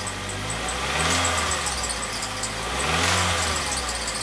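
Ford Fusion engine idling and revved up twice in short blips, about a second and three seconds in. A fast, even high-pitched chirp runs under it, about four or five a second, from a dried-out bearing in one of the belt-driven accessory pulleys.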